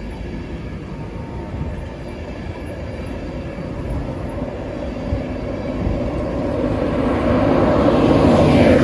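A train approaching and passing, its rumble growing steadily louder to a peak near the end.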